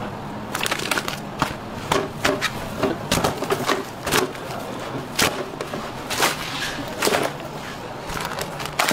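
Plastic vacuum-pack wrapping on raw beef cuts crinkling and crackling as it is handled, in irregular sharp crackles over a steady low hum.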